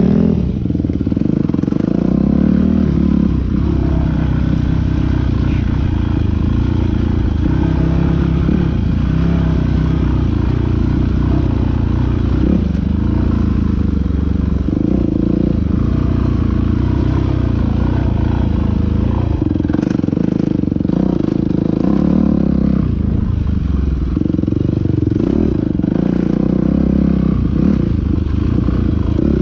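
Dirt bike engine running continuously during off-road racing, its pitch rising and falling as the throttle opens and closes. A few short knocks and clatters in the later part.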